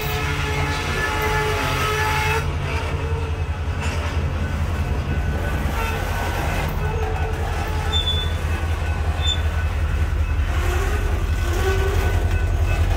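A freight train of log-loaded flatcars rolling past, with a steady, dense rumble and clatter of wheels on the rails that grows slightly louder near the end.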